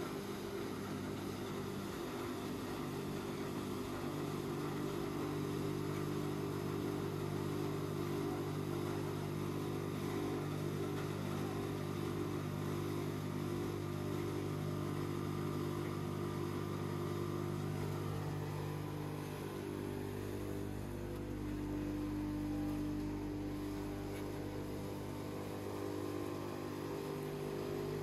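Large hammer mill wood crusher running continuously, crushing shredded fresh high-moisture wood into sawdust, with a steady hum.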